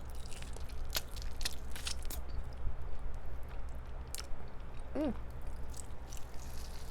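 Close-up chewing and biting of crispy fried chicken with nacho cheese: wet mouth clicks and crunches scattered throughout, with a brief hummed 'mm' about five seconds in.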